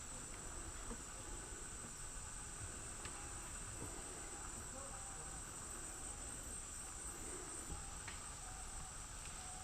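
Rainforest insect chorus: a steady, high-pitched, unbroken drone, with a few faint short calls lower down.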